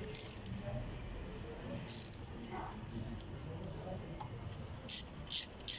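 Thread tap being turned by hand in a stripped bolt hole of an engine cylinder head, cutting a new oversize thread: short, scratchy metallic clicks, a few spread out, then several in quick succession near the end.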